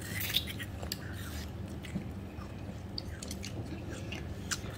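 Child eating a frozen fruit ice pop: a few scattered wet mouth clicks and smacks over a steady low hum.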